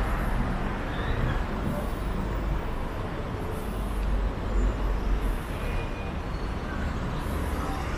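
Steady street traffic noise from passing cars, with a constant low rumble.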